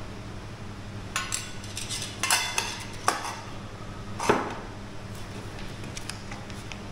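Small metal coffee-making parts clinking and clattering as they are handled and set down, a few separate knocks with a short ring, the loudest about four seconds in.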